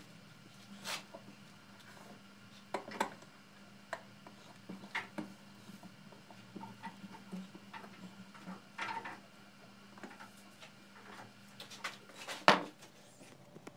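Scattered light clicks and knocks of small tools and parts being handled on a workbench, with one sharper knock near the end, over a faint steady low hum.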